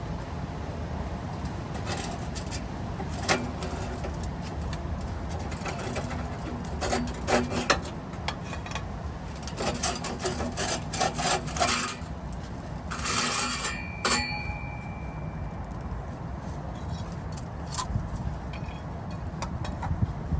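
Metal clinks, taps and scraping from hand work on an exhaust pipe and its rusted clamps, in clusters between about 2 and 14 seconds, over a steady low rumble.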